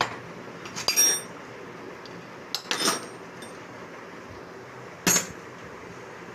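Metal tools or turbocharger parts clinking against each other three times, each a short sharp strike with a brief bright ring, over a steady low workshop hum.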